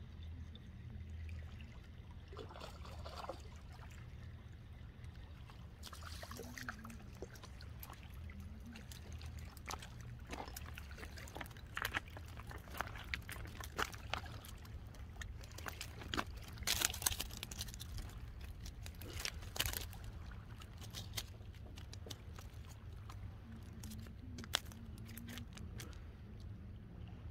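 Water splashing and trickling over a steady low rumble, with a run of sharp short splashy sounds through the middle.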